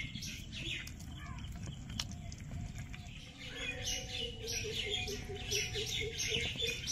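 Small birds chirping, the chirps sparse at first and coming thick and fast from about halfway through, over a lower wavering note.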